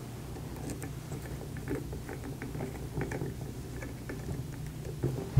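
Faint rustling and small clicks of fingers handling and twisting electrical wires, with a brief louder click near the end, over a low steady hum.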